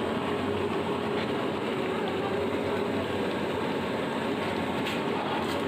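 A steady, even rumbling noise with no distinct knocks or changes.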